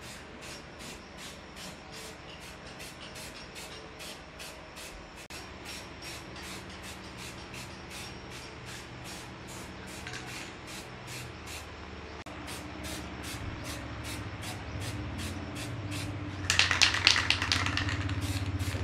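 Workshop machinery running: a steady mechanical ticking about two or three times a second, joined partway through by a low motor hum. A louder hissing, rasping burst lasts about a second and a half near the end.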